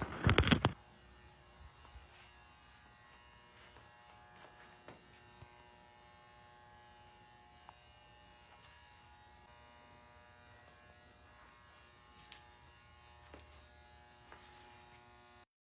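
A short, loud burst of noise in the first second, then a faint, steady electrical buzz made of several even tones, with a few light clicks over it. It cuts off suddenly near the end.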